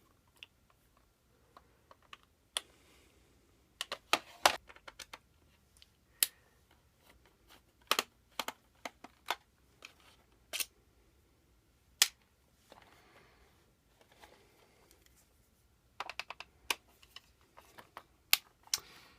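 Irregular sharp clicks and taps of a screwdriver on a screw and the plastic shell of a VHS cassette as the shell's screws are undone and the cassette is handled, with a brief faint scraping around the middle.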